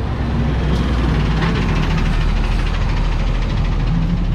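Street traffic: motor vehicle engines idling and running close by, a steady low rumble.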